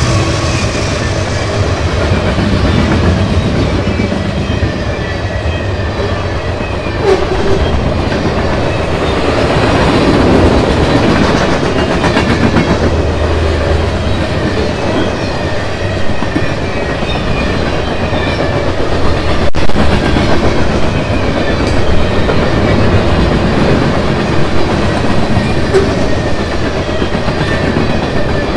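Freight cars of a long mixed freight train (tank cars, covered hoppers, boxcars, centerbeam flatcars) rolling past at speed: a steady rumble of steel wheels on rail, with occasional sharp clicks as wheels pass over the rail joints.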